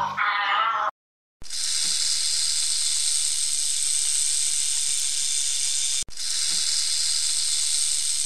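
Snake hissing: a long, steady hiss that starts about a second and a half in, drops out for an instant about six seconds in, then carries on. It is preceded by the brief end of a music clip and a short silence.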